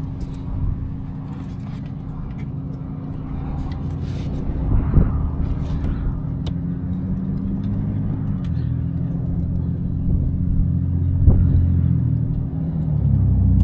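A motor vehicle's engine running, a steady low hum that grows stronger in the second half. A few sharp clicks from the plastic wheel-arch liner and wiring clip being handled.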